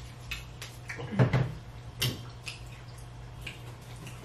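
Close-up eating sounds: wet mouth clicks and smacking while chewing seafood, with a louder knock about a second in and another about two seconds in. A faint steady hum runs underneath.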